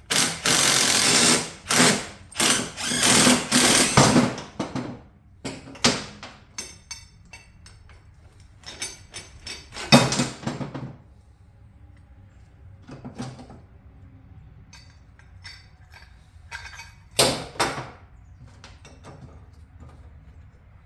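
Impact wrench running off a cylinder head bolt on a Harley-Davidson Ironhead engine, the bolt already broken loose. It runs in bursts, nearly continuous through the first four seconds or so, then shorter bursts about six, ten, thirteen and seventeen seconds in.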